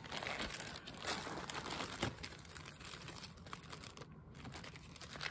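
Plastic zip-top bags crinkling as hands rummage through them and lift one out.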